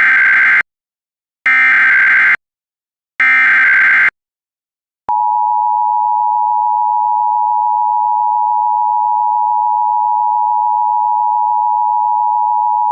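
Emergency Alert System tones: three harsh digital data bursts, the SAME header, each about a second long, then about five seconds in the steady two-tone EAS attention signal, held for about eight seconds. It signals that an emergency alert message, here a Child Abduction Emergency, is about to follow.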